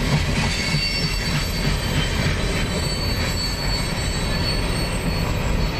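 Freight train cars (covered hoppers and boxcars) rolling past over a grade crossing: a steady rumble of steel wheels on the rails, with a thin, high wheel squeal through the middle.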